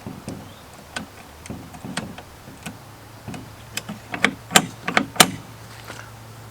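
Screws being driven into an RV door lock by hand with a screwdriver: irregular small clicks and taps of metal on the lock's housing, with a few sharper clicks about four to five seconds in, over a faint steady low hum.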